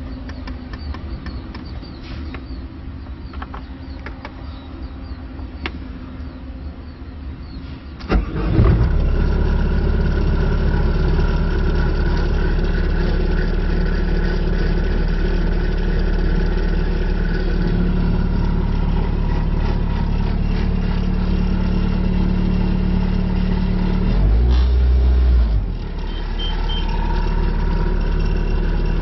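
Bobcat T770 track loader's diesel engine cranking and catching about eight seconds in, then running steadily. About 24 seconds in it runs louder and deeper for a second and a half, then settles back.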